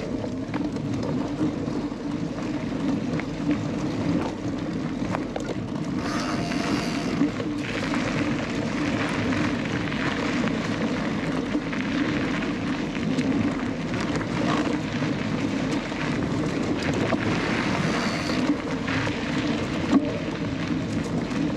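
Riding noise from a full-suspension cross-country mountain bike on a dirt trail: a steady rush of tyres and wind on the microphone, with scattered short clicks and rattles from the bike.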